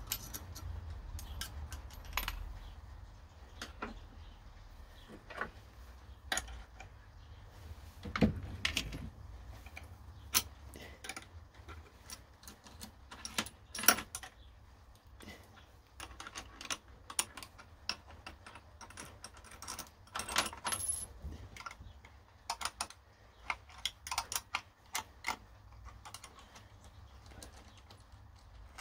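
Irregular metallic clicks, taps and light clinks of hands handling the clamped plate, metal swarf and clamp hardware on a milling machine table, the loudest knocks about a third and halfway through.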